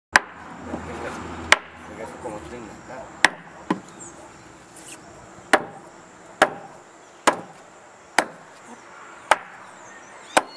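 A machete chopping through a gillbacker catfish on a wooden bench. About ten sharp, separate chops come at an uneven pace of roughly one a second, each blow landing through the fish onto the wooden boards.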